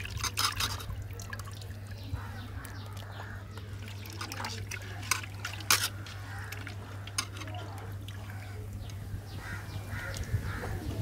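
Fish curry boiling in a clay pot, bubbling with irregular pops and small clicks, while pieces of ribbon fish are slid into it by hand with wet plops.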